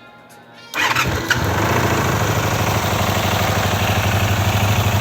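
Faint music, then about a second in a 1984 Honda VF500F Interceptor's V4 engine, its carburetors freshly rebuilt, fires up suddenly and settles into a steady, evenly pulsing idle.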